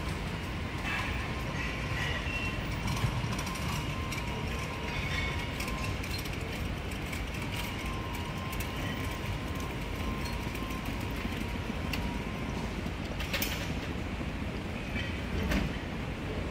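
Automated car-parking machinery running: a steady mechanical rumble with a faint high whine, plus scattered squeaks and clicks. The whine stops about three-quarters of the way through, and sharper clicks follow near the end.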